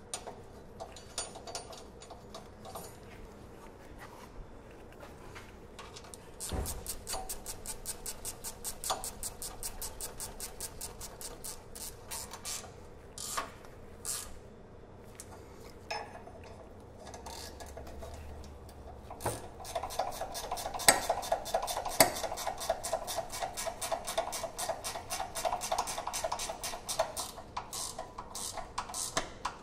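Hand ratchet clicking in long, quick runs of strokes while the sway bar drop bracket's bolts are run down, with a short pause partway through and a couple of louder metal clinks.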